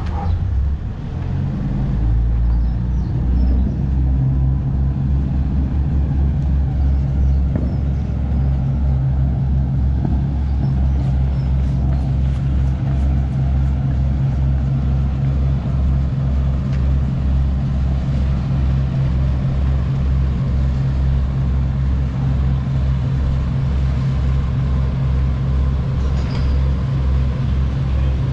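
RNLI lifeboat's diesel engines starting from cold about a second or two in, then running steadily with a deep, fast, even pulse while pouring out white exhaust smoke.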